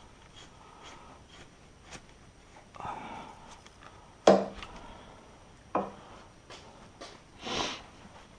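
Hand tools being handled on a car's front suspension: a loud sharp clack with a short ring about four seconds in, a smaller knock a second and a half later, and scraping and rustling in between.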